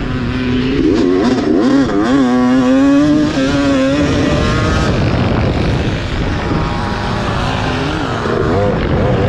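1991 Yamaha WR250 two-stroke engine racing, heard from on board, with its pitch rising and falling as the throttle is worked and holding steady for a couple of seconds near the middle.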